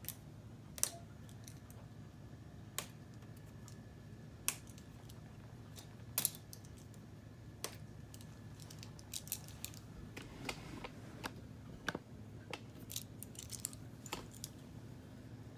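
K'nex plastic pieces being handled and snapped together, giving scattered single clicks with small flurries of clicks near the middle and toward the end, over a faint steady hum.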